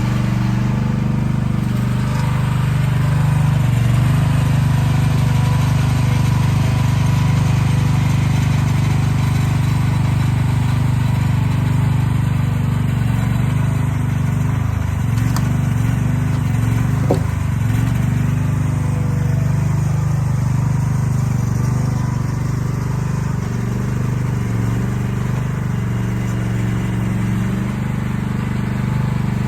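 Diesel engine of heavy earthmoving equipment running steadily at work, its pitch dipping briefly and recovering around the middle, with one short knock at about that point.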